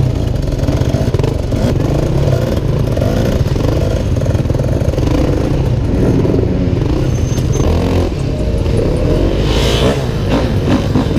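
Dirt bike engine running as it is ridden, heard from the rider's own bike, its note wavering up and down with the throttle.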